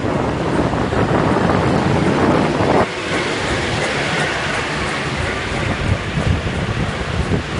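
Wind rushing over the microphone of a moving vehicle, with road rumble underneath. About three seconds in the low rumble drops away suddenly and the noise turns to a higher hiss.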